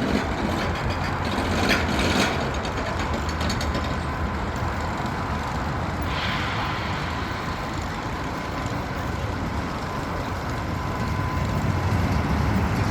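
Arrow looper roller coaster train running on its steel track: a steady, fairly loud mechanical noise, with a short burst of clatter about two seconds in and another about six seconds in.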